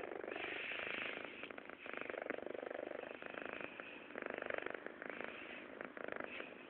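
Kitten purring continuously, a fast even pulsing that shifts slightly with each breath in and out.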